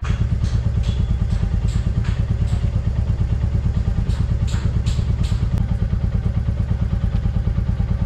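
Royal Enfield Classic 350's single-cylinder engine idling steadily with a quick, even low pulse. A few light clicks and knocks sound over it during the first five seconds.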